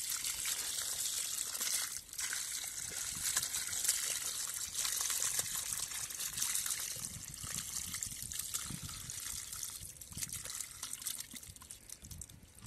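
Muddy water pouring and splashing out of a tipped clay pot onto wet ground and into a shallow puddle. The flow grows fainter near the end.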